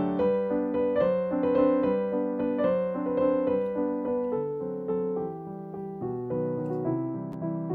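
Background piano music with a steady, flowing run of notes.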